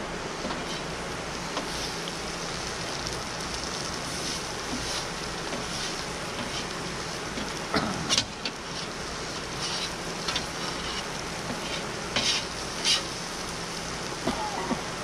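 Chopped hot peppers sizzling steadily on a flat-top griddle. A few short scrapes and clacks of a metal spatula on the steel plate come as the peppers are stirred, mostly in the second half.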